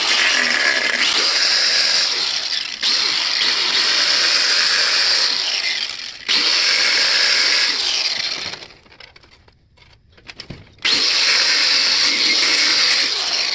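Angle grinder with a thin metal cut-off disc cutting through the thick plastic ear cup of an SPH-4 helmet shell. It cuts in long runs with two brief dips, stops for about two seconds, then cuts again near the end.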